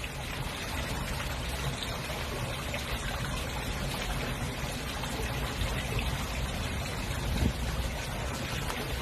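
Steady running water, an even trickling rush.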